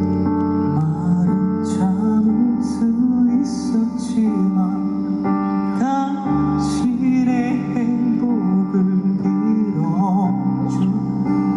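Live band playing a slow ballad with a man singing lead over guitar. The voice holds long notes and wavers in vibrato near the end.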